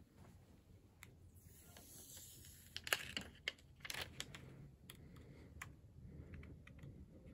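Small clicks and taps of a tempered-glass screen protector being handled and set against an iPhone's screen, with a brief crinkling hiss of its plastic film about a second and a half in.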